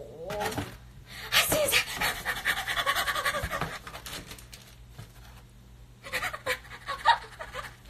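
Packaging being handled: a plastic bag and a carded phone case rustling and crinkling as they are pulled out of a cardboard box, with a short breathy vocal sound near the start.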